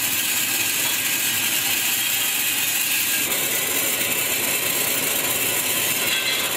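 Popcorn roasting machine running, grain tumbling and rattling in its turning drum as a steady, dense rattle that grows fuller about three seconds in.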